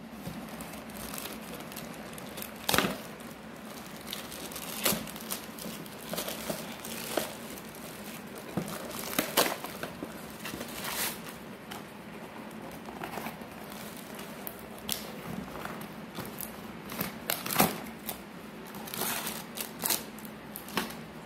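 Plastic courier mailer bag crinkling and rustling as it is handled and torn open by hand, with sharp loud crackles every few seconds.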